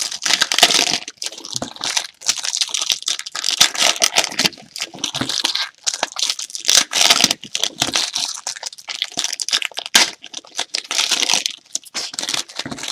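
Plastic wrapping on a box of trading cards crinkling and tearing as it is handled and opened, in a dense run of irregular crackles with short pauses.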